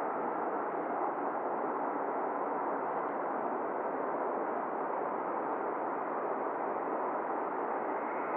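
Steady radio hiss with no voices, the sound of an airband receiver held open between air traffic control transmissions.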